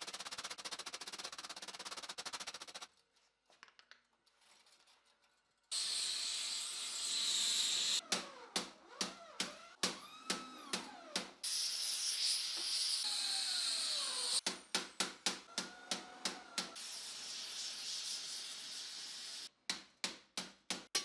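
Hand hammer striking steel armor plate on a stake anvil in quick flurries of blows, some ringing out, alternating with stretches of steady hiss. There is a brief near-silent gap about three seconds in.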